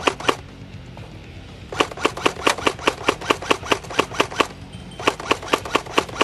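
Airsoft gun fired in quick, even shots, about five a second, in runs of a couple of seconds broken by short pauses.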